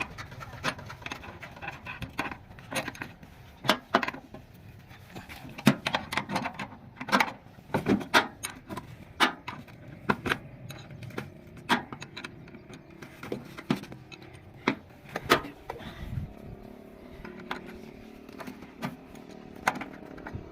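Irregular sharp metallic clicks and clinks of hand tools and small metal fittings being handled, a couple of dozen in all, loudest and most frequent in the middle.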